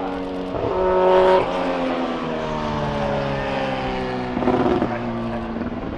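Nissan Skyline Super Silhouette (R30) race car's turbocharged four-cylinder engine running hard. It is loudest about a second in, then the pitch falls slowly for a few seconds, with a brief louder burst near the end.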